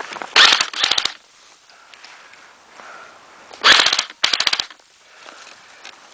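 Airsoft gun firing short rapid bursts: two quick strings of sharp cracks within the first second, then two more a little under four seconds in.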